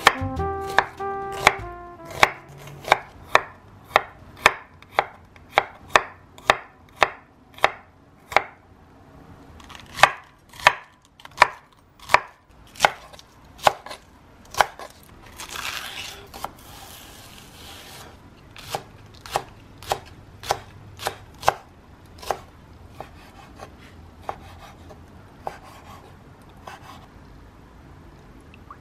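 Kitchen knife slicing through onion and then cabbage onto a wooden cutting board: a steady run of crisp knocks, about two to three cuts a second, slowing and getting quieter later on, with a short rustle near the middle.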